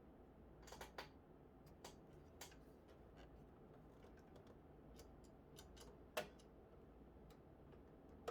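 Faint, sparse clicks and taps of hands working metal and plastic PC parts while fitting a graphics card, the loudest about six seconds in.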